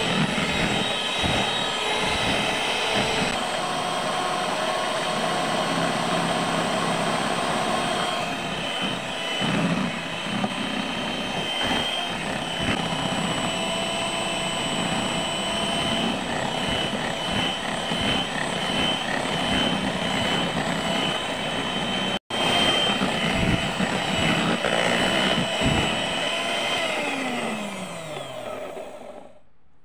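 Electric hand mixer running steadily, its whirring beaters churning through a thick margarine-and-sugar cookie batter in a plastic bowl. Near the end the motor is switched off and its pitch falls as it winds down.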